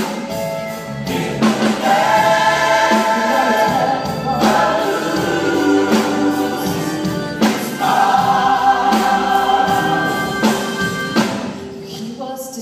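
Gospel choir singing in long held phrases, each breaking off after about three seconds before the next begins.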